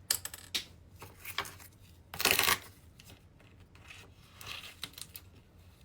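Hand-handling noises as an oyster is opened for its pearl: scattered clicks and rubbing, with one louder scraping rush about two seconds in.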